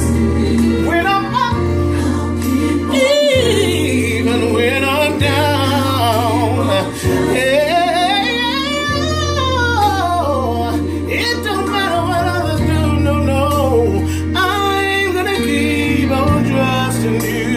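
A man singing gospel with long, wavering held notes and vocal runs, without clear words. Underneath are steady low accompaniment chords that change every few seconds.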